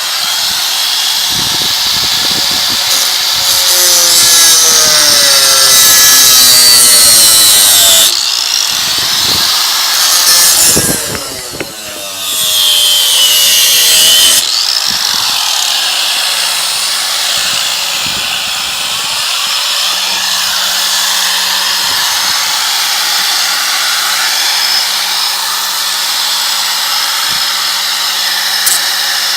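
Kawasaki 4.5-inch angle grinder cutting through a rusted steel bolt: the high whine and grinding of the wheel biting into the metal, its pitch sagging under load and climbing back. About eleven seconds in it briefly eases off, then comes back up to speed and keeps cutting.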